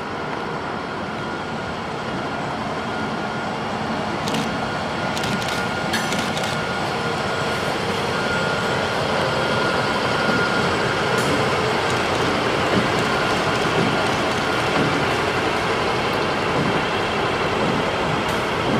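Class 60 diesel locomotive with its Mirrlees eight-cylinder engine running as it hauls a hopper train slowly past, its sound growing steadily louder as it draws level. A steady whine sits over the engine noise for the first two-thirds, with a few light clicks a few seconds in.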